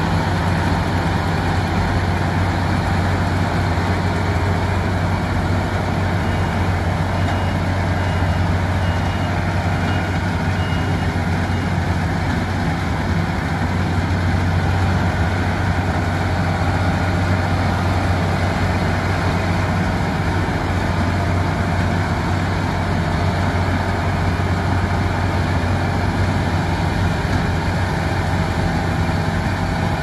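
Claas Lexion 8900 combine harvester working under load in barley: a steady, loud drone of the engine together with the threshing drum and straw chopper, with no change in pace.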